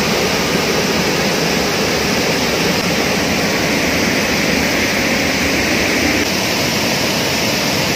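Wide, low river waterfall rushing over a rock ledge into a pool: a loud, steady roar of white water.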